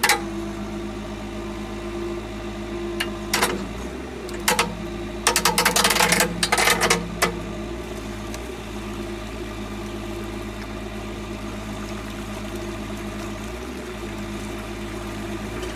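An engine running steadily, with a few sharp knocks about 3 and 4.5 seconds in and a burst of rattling clatter from about 5 to 7 seconds in.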